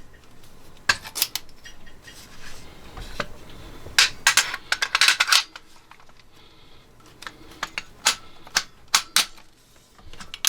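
Sharp metal clicks and clacks of an AR-style 9mm carbine being handled as its upper receiver is fitted onto the lower: a few clicks, a rapid clatter about four seconds in, then several more near the end.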